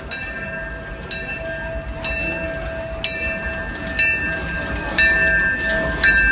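Steam locomotive bell of the Disneyland Railroad ringing slowly, about one stroke a second, each stroke ringing on, over the low rumble of the train.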